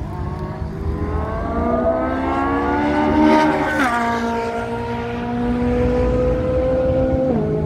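Car engine accelerating hard, its pitch climbing steadily and then dropping sharply about four seconds in at a gear change. It then pulls on at a nearly steady pitch, with another drop near the end.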